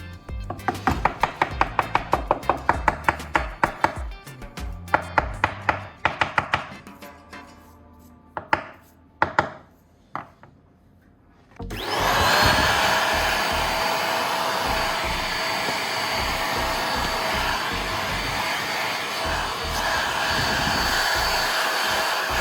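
Fast, even sawing strokes on wood, about four a second, then a few scattered knocks. About twelve seconds in, a small electric power tool's motor spins up with a rising whine and then runs steadily.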